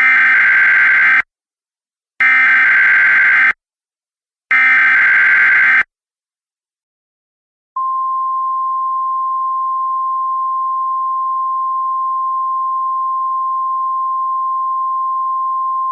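Emergency Alert System SAME header: three identical data bursts of about a second each, about two seconds apart. After a short gap, a single steady weather-radio warning tone starts about eight seconds in and holds.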